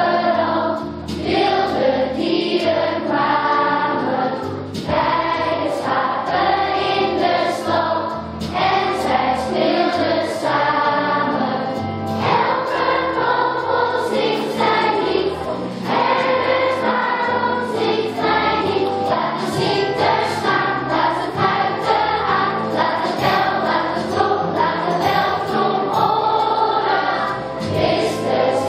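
A group of children singing together as a choir.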